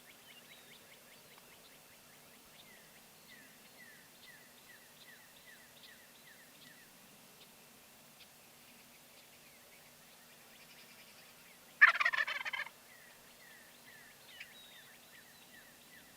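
A wild turkey gobbles once, a loud rapid rattling call just under a second long, about twelve seconds in. Faint, quick, repeated chirps of small birds come before and after it.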